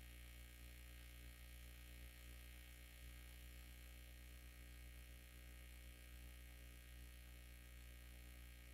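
Near silence: a faint, steady low hum of the recording's background.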